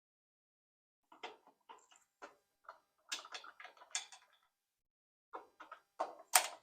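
Scattered clicks and small knocks from a Phillips screwdriver backing out the screws of a rowing machine's generator cover and the small parts being handled. They come in two clusters, with the sharpest click near the end.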